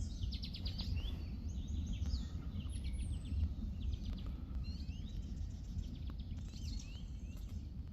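Songbirds chirping and trilling, with many short calls throughout, over a steady low rumble.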